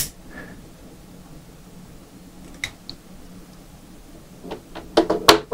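A sharp click at the start, a couple of faint clicks in the middle, and a quick run of small clicks and knocks near the end.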